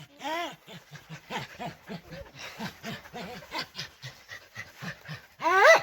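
A dog panting quickly with short whimpering whines, then a loud rising whine near the end.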